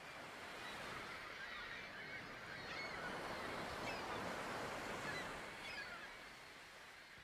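Sea surf: waves breaking and washing, swelling in and then fading down, with a few short bird calls over it.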